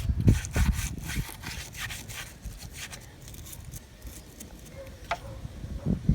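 A brush scrubbing baking-soda paste around a corroded car battery, in quick back-and-forth scraping strokes, about three a second, that fade out after about two seconds.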